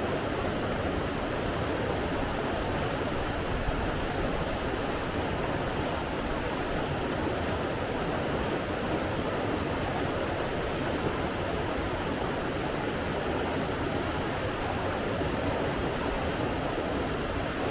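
Running water rushing steadily, an unbroken even noise with no distinct splashes or other events.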